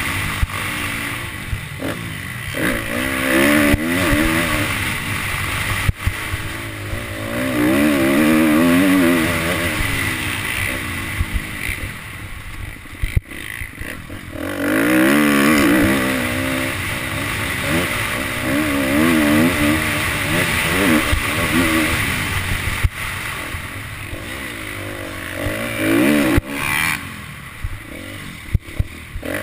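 Dirt bike engine revving hard and easing off in repeated surges as it accelerates out of turns along a motocross track, heard from the rider's helmet. Occasional sharp knocks and clatter.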